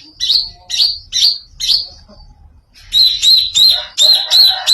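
Greater green leafbird (cucak ijo) giving a strange call of sharp, repeated high notes: four spaced about half a second apart, then after a short pause a faster, louder run of about three a second.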